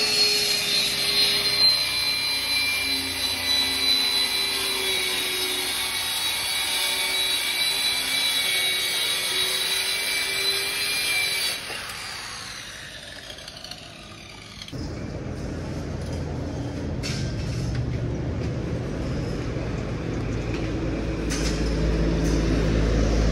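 Corded handheld circular saw running and cutting through a sheet of plywood with a steady high motor whine. About halfway through it is switched off and the whine falls away as the blade spins down, and a steady low rumbling noise takes over.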